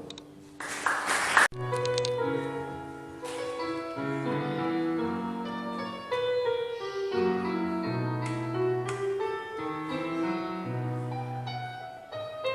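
Piano playing a slow classical passage, with held chords and single struck notes. Before it starts, about half a second in, there is a loud burst of noise lasting about a second that stops abruptly.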